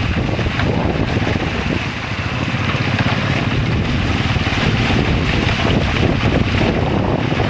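Wind buffeting the microphone over a steady low rumble, with no breaks.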